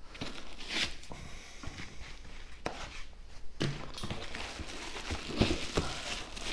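Bubble wrap crinkling and rustling as a wrapped unit is handled and lifted out of a cardboard box, with a few sharp clicks and knocks along the way.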